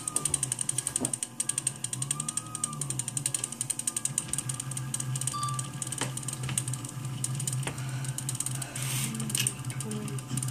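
Homemade 3D printer's stepper motors whirring as the print head moves, their pitch rising and falling as the axes speed up and slow down, with fine rapid ticking and a few sharp clicks.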